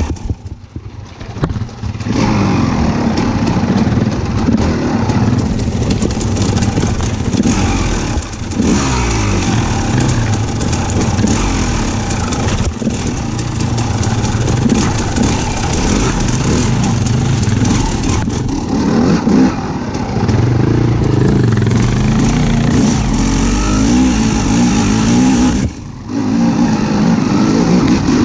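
A motor vehicle's engine running and revving up and down repeatedly under a steady hiss, with a brief break about two seconds before the end.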